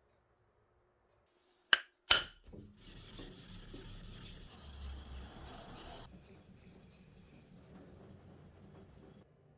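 Two sharp clicks, then a yanagiba (sashimi knife) blade scraping back and forth on a whetstone in quick, rhythmic strokes. The strokes are loudest for a few seconds, then softer.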